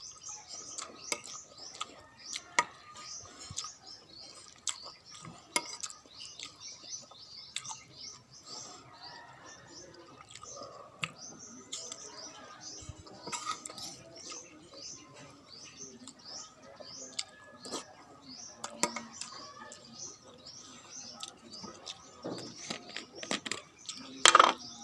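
Spoon and cutlery clinking against a bowl while eating, in many short clicks, with small birds chirping in the background. A louder clatter comes near the end.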